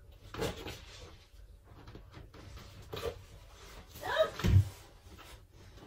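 Scattered knocks and rustling as someone rummages on a bed. About four seconds in comes a short, wordless vocal sound effect, followed by a low thump.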